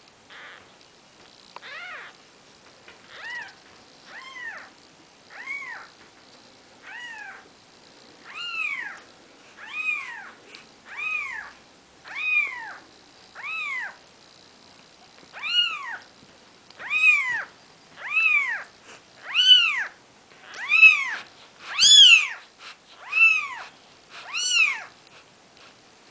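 A four-day-old Maine Coon kitten crying: a long series of high, arched mews that rise and fall in pitch, about one every second and a half, getting louder in the second half.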